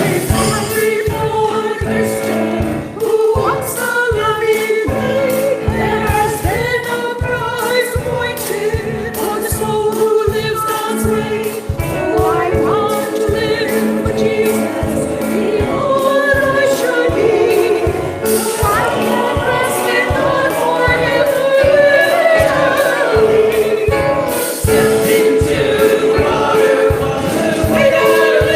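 Church choir singing a gospel song over instrumental accompaniment with a steady beat.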